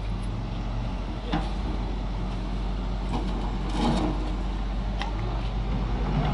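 Truck engine running steadily, with a few sharp clicks and knocks about a second in, near the middle and again a second later.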